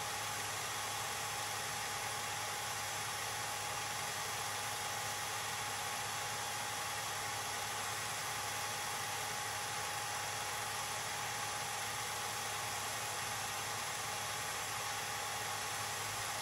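Film projector running: a steady mechanical whir with hiss and a faint steady tone, unchanged even after the film runs out to a blank screen.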